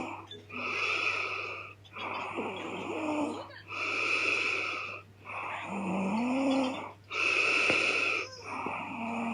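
A woman snoring loudly in her sleep, both breathing in and breathing out sounding, each about a second and a half, in a steady rhythm of about three full breaths. The snores are rough and rasping, with a wavering tone that rises and falls on some breaths.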